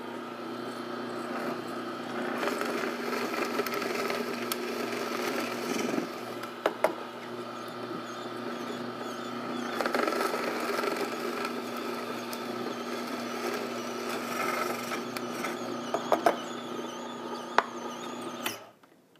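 Slow-speed masticating juicer's motor running steadily with a low hum while it crushes broccoli stalk, with a few sharp clicks along the way; the motor is switched off near the end.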